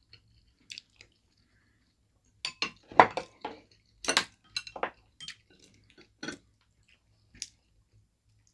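Metal spoon and chopsticks clinking and knocking against ceramic bowls and plates: a run of sharp clicks a couple of seconds in, the loudest about three seconds in, then one more click near the end.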